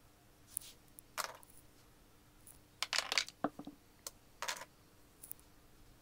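Scattered clicks, taps and rustles of makeup tools being handled, picked up and set down, with a tight cluster of taps about three seconds in.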